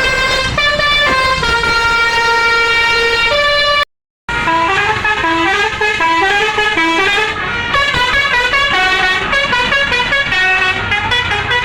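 Basuri telolet musical horn on an Indonesian bus playing a tune, several horn tones stepping from note to note. It drops out briefly about four seconds in, then returns with a quicker run of changing notes.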